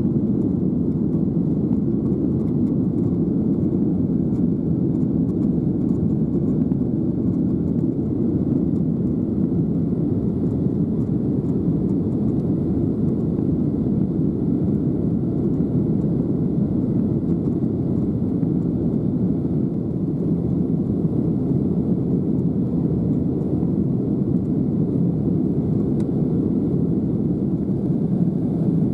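Steady low rumble of an airliner cabin: the even drone of the aircraft's engines and air-conditioning heard from inside the plane, unchanging throughout.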